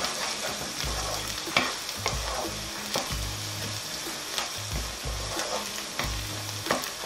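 Chopped onions and whole spices sizzling in hot oil in a non-stick pan, stirred with a wooden spatula that scrapes and taps against the pan again and again.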